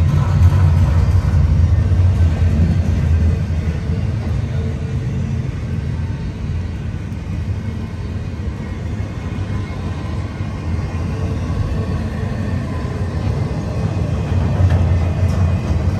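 Intermodal freight train of double-stack well cars rolling past, a steady low rumble of steel wheels on the rails, easing a little midway and growing louder again near the end.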